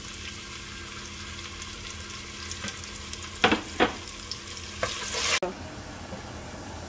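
Sliced onions sizzling as they fry in hot oil in a steel pot, stirred with a wooden spatula, with two short squeaks about halfway through. Past the middle the sizzle drops abruptly to a quieter, steady frying hiss.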